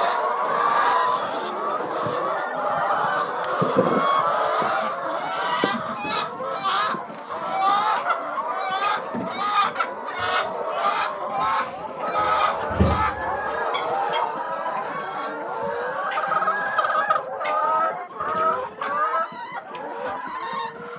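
A large flock of brown hens clucking and calling over one another in a constant din, with scattered sharp clicks and a dull thump about 13 seconds in.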